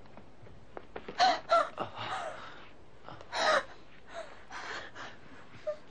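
A woman sobbing in gasping, breathy bursts, with the strongest sobs about a second in and again around three and a half seconds.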